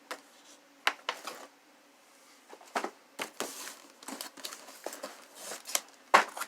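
Fireworks packaging being handled: irregular crinkling and rustling with a few sharp knocks.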